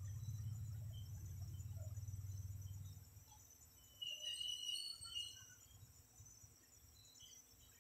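Insects chirping steadily in a high, continuous chorus. A low rumble runs under it for the first three seconds and then stops, and a brief higher chirp comes about four seconds in.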